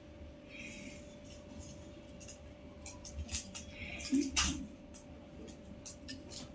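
Kittens scrabbling and rustling against a woven plastic basket as they squirm over each other: scattered soft scratches and clicks, a little louder about four seconds in, over a faint steady hum.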